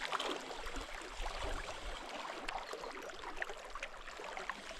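Faint, steady water noise at the shoreline, with a few light clicks and ticks.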